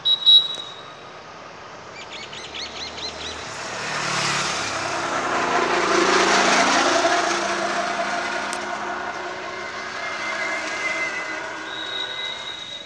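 Road traffic: a motor vehicle's engine and tyres swell to a peak about six seconds in and then fade as it passes. Short, sharp high-pitched tones sound at the start and near the end.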